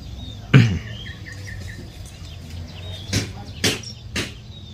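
Small birds chirping faintly in a mango orchard. There is a sudden loud bump about half a second in, and three short scuffs near the end.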